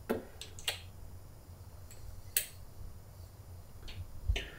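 A handful of short, sharp plastic clicks and taps, about five in all, the loudest about halfway through: a small dropper bottle and a shaker bottle's lid being handled.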